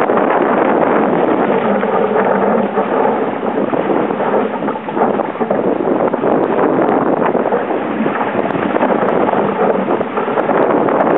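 Loud, steady wind noise buffeting the microphone, mixed with water rushing past the hull of a Sabre dinghy sailing fast in strong wind and choppy sea.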